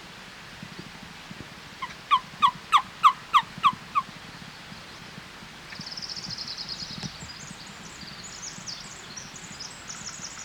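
Turkey yelping: a run of about seven loud, evenly spaced yelps, about three a second, lasting about two seconds. Small birds chirp faintly after it.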